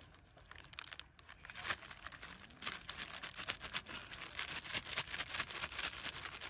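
Fast, dense crinkling and rustling from hands handling dry wheat flour and its bag while mixing it into fish-bait dough. It is sparse at first and becomes steadier from about two seconds in.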